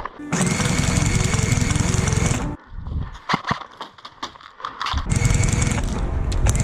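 Motorized airsoft minigun firing in two long bursts: a dense buzz with a whine that climbs in pitch as it spins up, the first burst about two seconds long, the second starting about five seconds in. Between the bursts, a string of sharp clicks.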